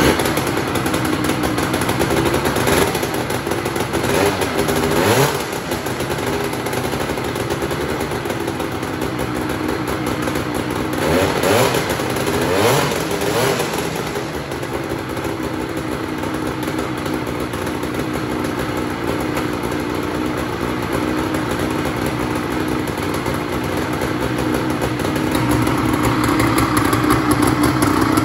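1971 Skiroule RT500 snowmobile's two-stroke engine starting suddenly after years of sitting and running. The revs rise and fall twice in the first half, then settle to a steady fast idle.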